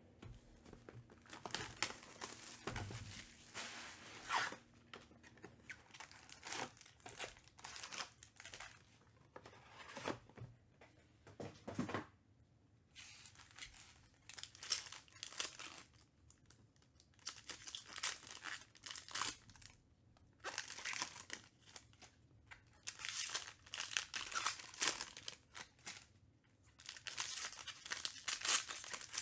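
Foil wrappers of Panini Prizm baseball card packs being torn open and crinkled by hand, in repeated bursts of ripping and crinkling with short pauses between.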